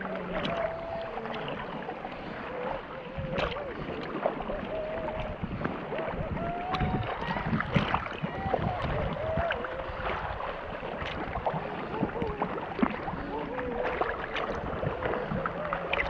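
Snorkellers making wavering, hummed vocal calls at the sea surface to attract dusky dolphins, over water sloshing and splashing against the camera.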